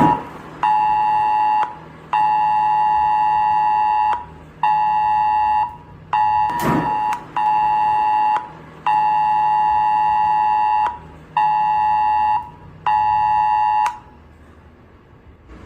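Mobile phone emergency alert attention tone: a loud, steady two-pitch alarm sounding in on-off pulses of uneven length with short gaps, stopping shortly before the end. There is a brief knock about seven seconds in.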